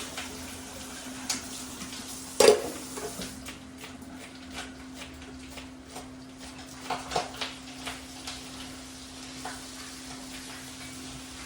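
Spoon stirring and mixing batuk batter in a bowl, with scattered knocks of the spoon on the bowl, the loudest about two and a half seconds in and a quick cluster around seven seconds. A steady low hum runs underneath.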